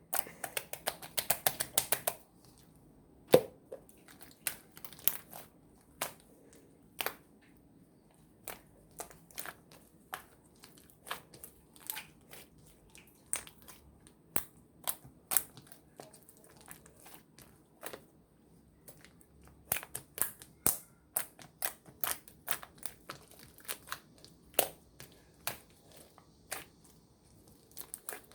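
Slime being pressed and squeezed by hand, giving irregular sharp clicks and pops, with a quick run of crackling clicks in the first two seconds, then single pops about once or twice a second.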